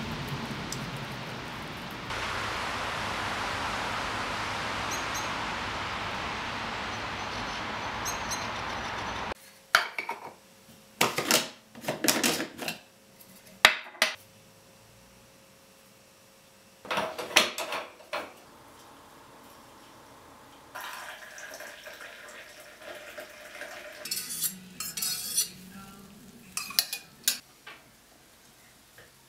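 Steady rain falling on a wet street, which stops suddenly about nine seconds in. It gives way to scattered metallic clinks and knocks as an aluminium stovetop moka pot and a metal coffee tin are handled on a wooden counter. A ceramic mug is set down on a wooden coaster near the end.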